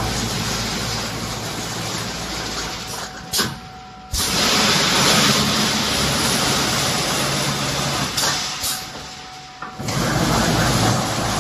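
Automatic wire mesh welding machine running, a loud mechanical noise with pneumatic hissing. It cuts out briefly about three and a half seconds in, comes back with a sharp click, then dies down again shortly before the end and restarts.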